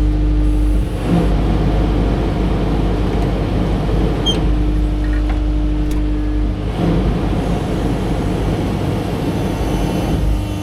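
Motor vehicle running: a steady engine and road rumble.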